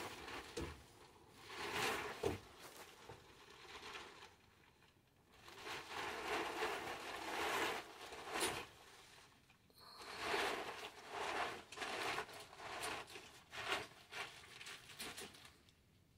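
Irregular handling noises: rustling and crinkling in bursts with a few sharp clicks, separated by short quiet gaps, as parts and packaging are handled.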